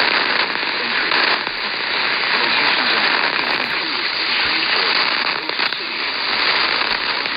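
AM radio reception full of loud hiss and crackling static, with a voice faintly audible beneath the noise.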